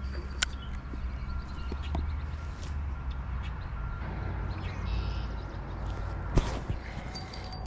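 A spinning rod and reel being handled during a cast: a few small clicks, and one sharp click about six seconds in, over a steady low rumble.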